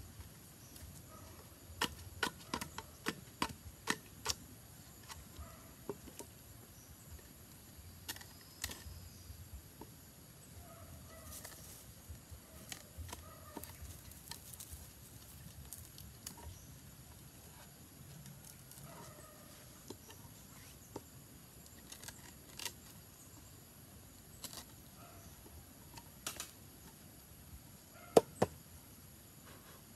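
A large knife chopping and tapping on green bamboo. A quick run of strokes comes a couple of seconds in, then scattered lighter taps, then two sharp knocks near the end, the loudest of all.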